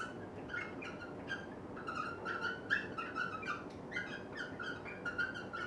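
Liquid fluorescent marker squeaking on a glass lightboard while words are written: a run of short, high squeaks, several a second, one with each pen stroke.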